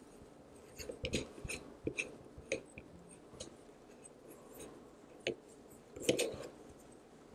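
Ball head of a Movo mini tripod being screwed onto its extension tube by hand: scattered light clicks and small scrapes of handling, loudest in a short cluster about six seconds in.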